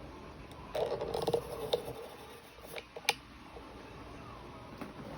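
Small handling noises from watercolour painting tools: a brief rattle about a second in, then a few sharp clicks.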